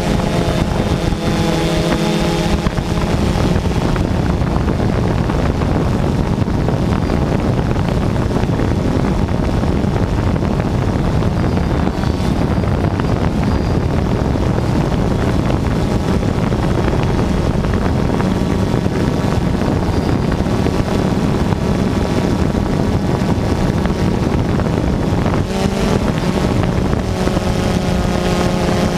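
Multirotor drone's electric motors and propellers buzzing steadily, recorded on board, mixed with heavy wind and propeller-wash noise. A clear pitched motor whine stands out in the first couple of seconds and again in the last few seconds.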